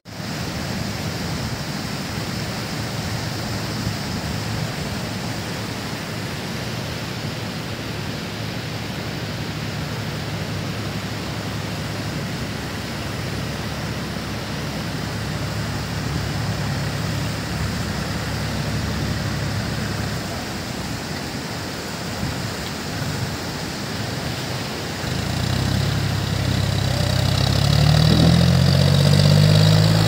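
Steady rushing noise, then over the last few seconds a tractor engine grows louder close by and revs, its pitch rising.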